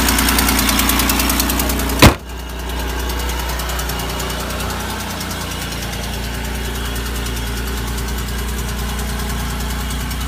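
Supercharged GM 3800 L67 V6 idling steadily with a rapid, even ticking typical of an exhaust leak. A single loud sharp knock about two seconds in, after which the engine sounds quieter and duller, the ticking much fainter.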